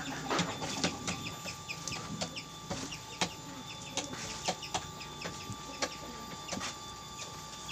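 Paper crinkling and rustling in the fingers as it is wound tightly around a ring, in scattered short clicks and ticks.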